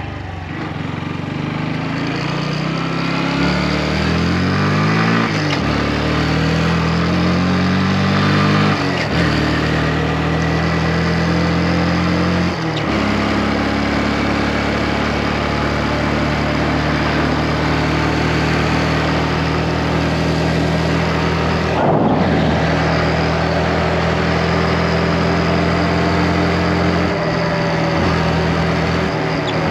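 Motorcycle engine pulling away and accelerating, its pitch climbing and dropping back at each of three upshifts in the first dozen seconds, then running steadily at cruising speed.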